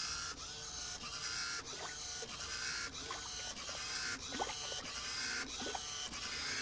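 Electric wave-generator paddle of a small wave tank whirring as it drives waves down the tank, its motor whine rising in pitch again and again over a steady high hiss.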